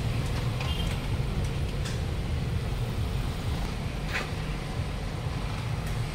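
Mitsubishi Pajero Field Master diesel engine idling steadily after a cold start.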